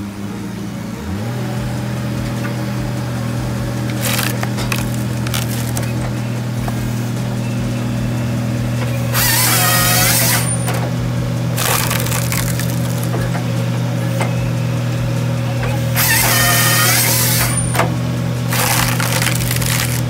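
A mini excavator's engine revs up about a second in and then runs steadily. An excavator-mounted firewood processor's saw bar cuts through logs twice, each cut a loud whining burst of about a second and a half. Shorter bursts of wood noise come in between.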